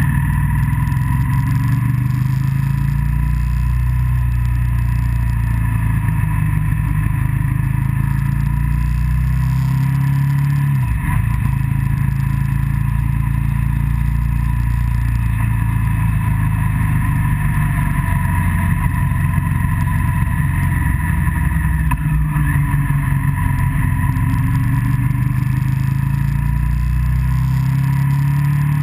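Motorcycle engine running steadily at road speed, its pitch dipping briefly about ten seconds in and again near the end.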